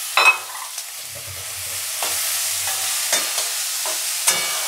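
Chopped onion, carrot and capsicum sautéing in hot oil in a metal kadai: a steady sizzle as a metal spatula stirs them. Sharp ringing metal clinks sound just after the start, near three seconds and just past four seconds.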